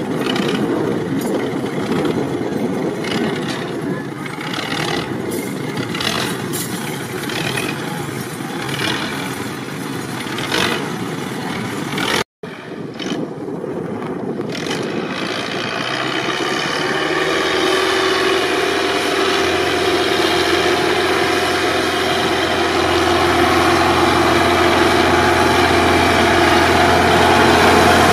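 Belarus 510 tractor's diesel engine labouring under a heavy trailer load. It is rough and noisy at first, with a brief dropout about twelve seconds in; after that it settles into a steady, strained note that slowly grows louder.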